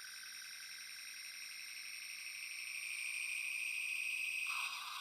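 Star Trek phaser replica playing its overload sound effect: a high electronic whine that pulses rapidly and builds louder over several seconds. Near the end it gives way to a shorter, lower burst.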